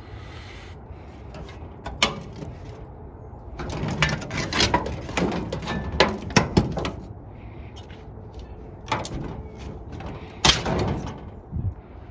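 Irregular knocks and clatters of hard objects being handled and moved, with a dense run of sharp knocks about four to seven seconds in and a few single knocks later.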